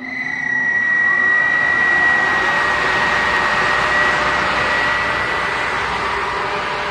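Air-powered concrete pipe drilling machine running on compressed air: it comes on and builds over the first second to a steady high whine over loud rushing-air hiss.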